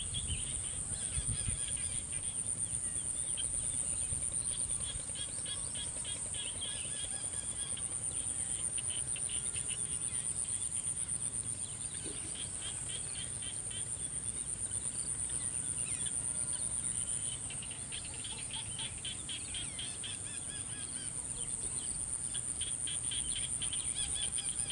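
Insects chirping: a steady high-pitched trill runs throughout, with stretches of lower, rapidly pulsed chirping that come and go every few seconds.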